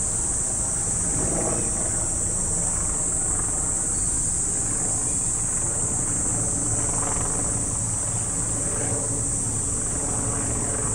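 Steady high buzzing of a summer cicada chorus, with the low, steady rumble of road traffic underneath.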